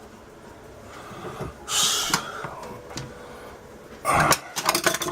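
A man breathing out hard about two seconds in, then a louder, rough, rattly breath or snort a little after four seconds.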